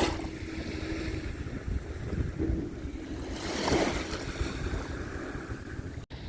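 Sea waves washing in, with wind buffeting the microphone and a faint steady hum underneath; a wave surges up about three and a half seconds in. The sound drops out for an instant near the end.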